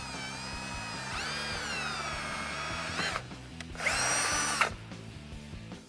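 Cordless Milwaukee drill with a 1/4-inch bit drilling holes through the car's bumper. The motor whine sags and rises in pitch as the bit cuts for about three seconds, then stops. A second, louder burst of drilling follows about four seconds in.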